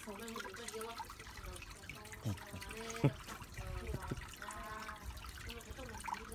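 Water in an above-ground pool lapping and trickling around a beagle standing in it, with a run of small bubbling, gurgling glides. Two sharper plops come at about two and three seconds in.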